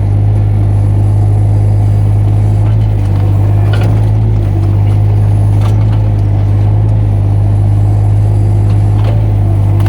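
Mini excavator's diesel engine running steadily at working speed, with a few faint clicks and knocks over it.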